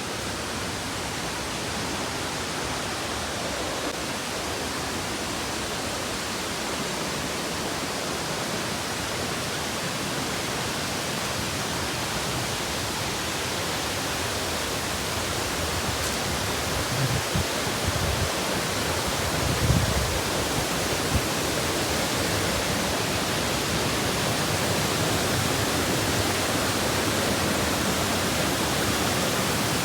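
Waterfall: a steady rush of falling water that grows slowly louder, with a few low thumps near the middle.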